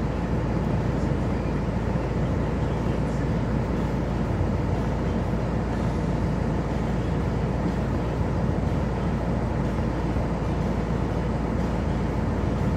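Steady machine noise with a low rumble and no clear pitch, even throughout.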